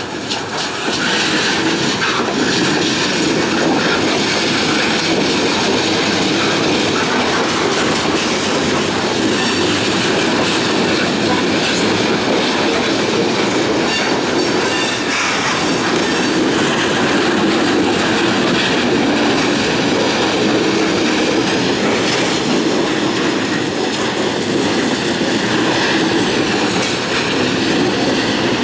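Freight train of loaded centerbeam lumber flatcars rolling past: a steady, loud rumble and clatter of steel wheels on the rails, with a thin steady squeal riding above it.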